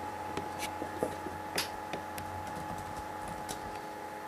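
A few irregular keystrokes on a computer keyboard while a chat message is typed, over a faint steady hum.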